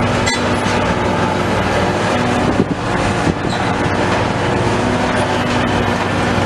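Heavy diesel demolition machinery running steadily, with a few sharp metallic clanks and knocks.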